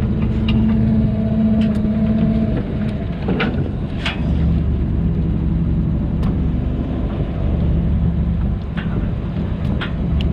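Fishing boat engine running steadily, its pitch dropping about two and a half seconds in as it throttles down, with a few scattered knocks and clicks.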